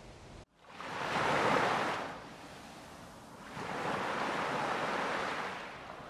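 Sea waves washing in, the rushing noise swelling and fading twice, starting after a short cut to silence about half a second in.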